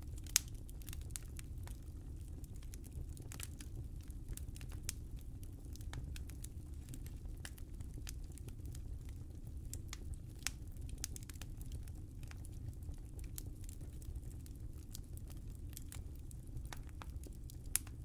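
Wood fire burning in a fireplace: a low steady rumble of flames under frequent sharp crackles and pops, the loudest pop about half a second in and another just before the end.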